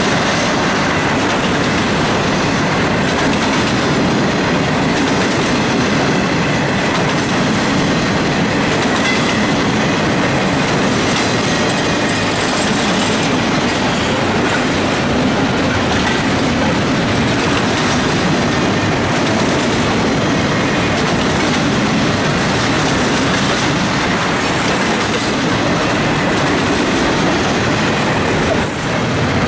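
Freight train cars rolling past on the rails: a loud, steady, continuous rolling noise of wheels on track.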